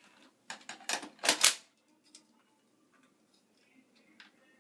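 Hard plastic parts of a Shark vacuum clicking and knocking as they are fitted and snapped together: a quick run of clicks about half a second in, the loudest knock at about one and a half seconds.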